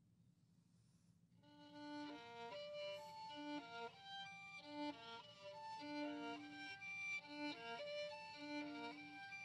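Violin playing a quick passage of short notes, one melodic line, starting about a second and a half in after a brief pause.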